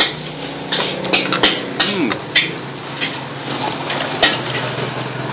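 Irregular metal clanks and clatter of cooking utensils against pans and dishes at a noodle stall, over a steady low hum, with a brief voice in the background.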